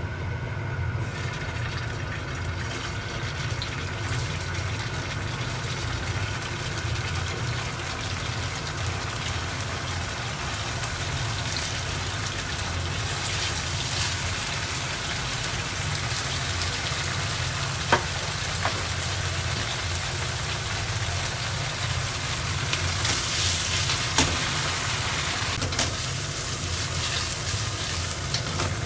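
Cubes of firm tofu sizzling in hot oil in a nonstick frying pan as they are set in one by one, a steady frying hiss that grows a little louder as the pan fills. A few sharp ticks stand out, the loudest about two-thirds of the way through.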